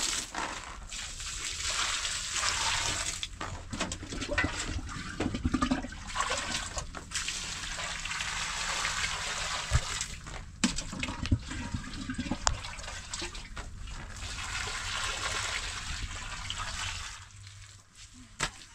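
Rushing water with a few knocks and clicks mixed in, dying away about seventeen seconds in.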